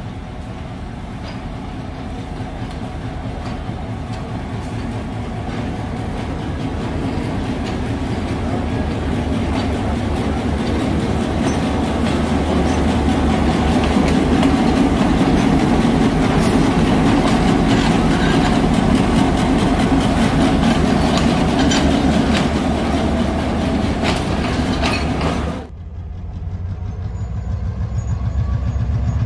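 Sri Lanka Railways Class M6 diesel locomotive approaching and passing close by, its engine rumble growing steadily louder, with wheels clicking over the rail joints as it goes past. About three seconds before the end the sound cuts abruptly to a lower, steadier engine running.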